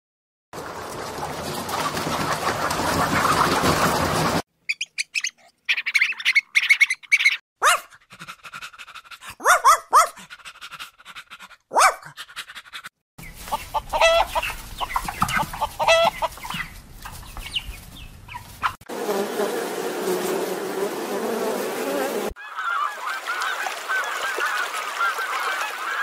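A run of short animal recordings cut one after another, with hard cuts between them: white chickens clucking about midway, and Canada geese honking near the end.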